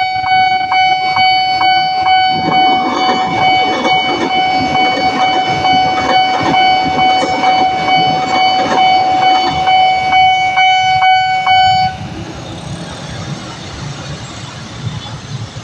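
Railway level-crossing warning alarm sounding one steady electronic tone, with regular clicks about twice a second, while a commuter electric train passes with a rumble and wheel clatter. The alarm cuts off abruptly about twelve seconds in, leaving lower road traffic noise.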